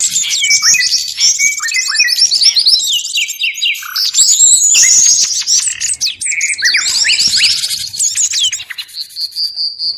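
Busy mixed chorus of small songbirds, many chirping and twittering over one another at once, used as a bird-lure call. Near the end the chorus thins to a short run of quick repeated high notes.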